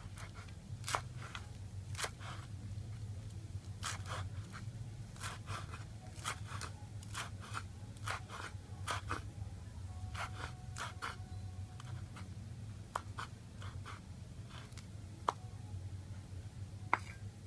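Cleaver chopping a bunch of fresh herb leaves on a wooden cutting board: irregular sharp knocks of the blade striking the board, a few a second with short pauses, over a steady low hum.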